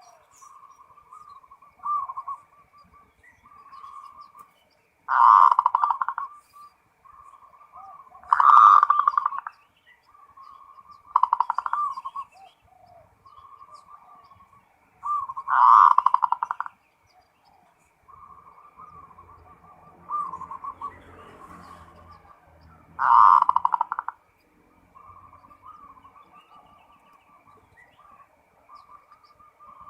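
Zebra dove (perkutut) cooing: five loud rolling coo phrases of about a second each, with softer cooing notes running between them.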